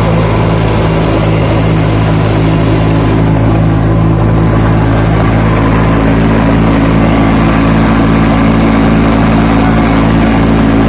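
Combine harvester running steadily, its engine giving a loud, even hum.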